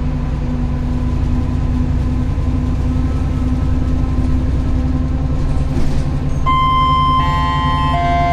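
An MAN NL202 CNG bus's natural-gas engine running with a steady low drone. About six and a half seconds in, a run of steady electronic tones starts and steps between pitches.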